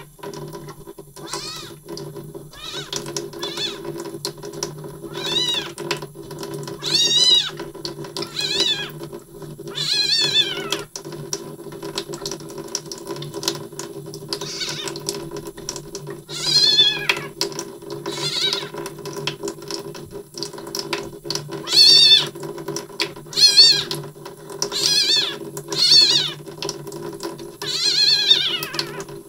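A young kitten mewing over and over in high-pitched cries, one every second or two with short pauses, protesting while its bottom is rinsed under a running tap.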